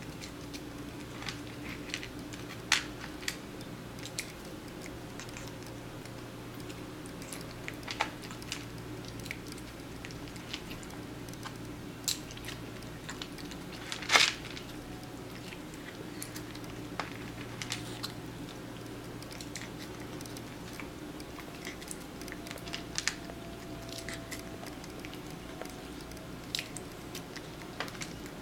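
A cat crunching and chewing small bites of food, with sharp clicks of chopsticks against a plastic bowl scattered throughout, the loudest about 14 seconds in. A steady low hum runs underneath.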